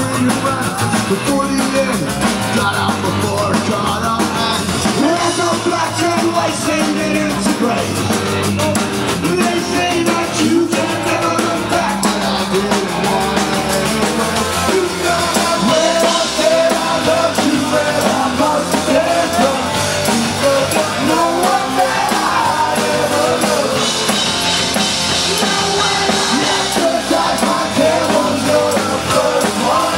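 Live punk rock band playing loud through a club PA, recorded from the front of the crowd: sung lead vocals over electric guitar, bass guitar and drums.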